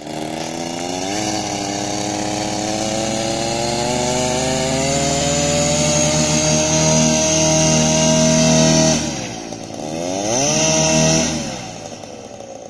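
Paramotor engine and propeller running on the ground, its pitch climbing slowly over about eight seconds, dropping off, revving up briefly once more, then falling back to idle near the end: a pre-flight engine run-up.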